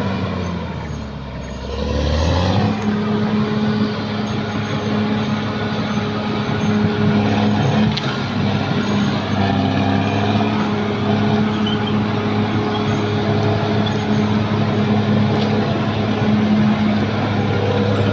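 Caterpillar D6R XL bulldozer's diesel engine running. Its revs sag briefly near the start, pick back up about two and a half seconds in, and then hold a steady drone.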